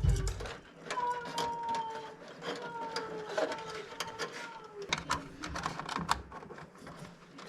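Scattered sharp clicks and taps of hands working on panel wiring, over faint tones that glide slowly downward.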